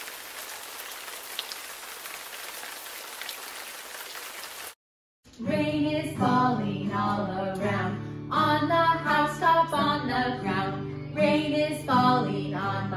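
Steady hiss of falling rain for the first four or five seconds, cut off suddenly. After a short gap, women sing a children's song to a strummed acoustic guitar.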